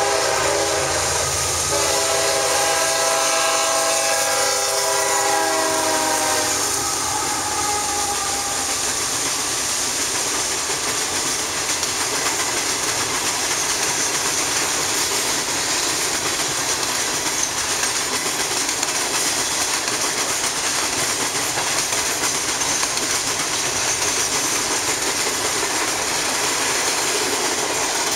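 CSX diesel locomotive horn blowing at a grade crossing, its pitch dropping about five seconds in as the locomotive passes. Then a long string of empty steel coal hopper cars rolls by with a steady rush of wheels on rail.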